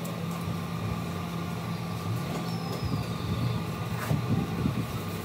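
A steady low motor hum, like an engine idling, with a single light knock about four seconds in.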